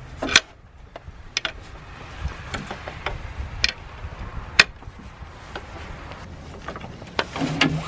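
Metal tool clicking and clinking as a serpentine belt tool and socket are worked onto the belt tensioner, with a handful of sharp separate clicks (the loudest about halfway through) over light handling noise.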